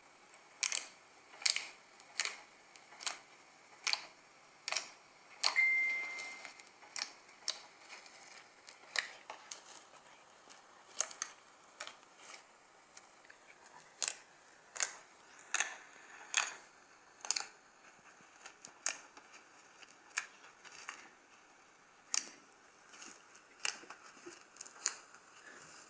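Bubbly glue slime being pressed and poked, its air bubbles popping in sharp clicks, roughly one a second. One brief high tone sounds about six seconds in.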